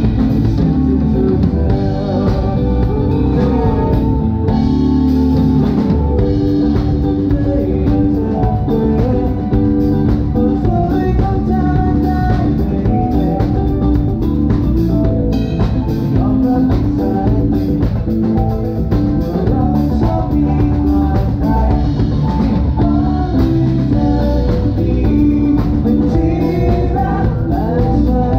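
Band music with a singer, drum kit and guitar, playing with a steady beat.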